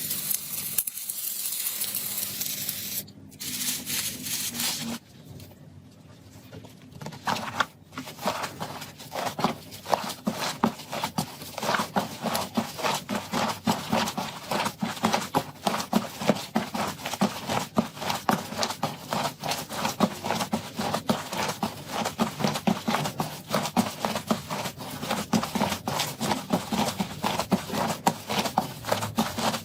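Slime being squished and worked by hand: a hissing start, a quieter stretch, then from about a quarter of the way in a dense run of fast crackling, popping clicks.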